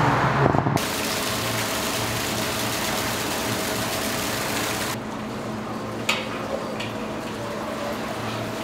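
Water pouring and splashing into a live-fish holding tank, a steady rush that drops to a quieter wash about five seconds in, with a steady low hum beneath it.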